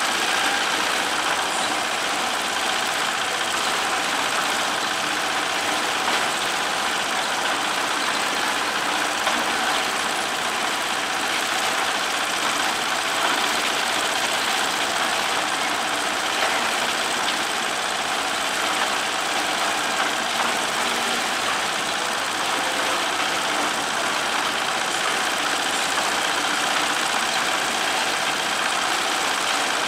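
Steady drone of heavy engines running at idle, an even, unbroken mix of machinery noise with no distinct clanks or horns.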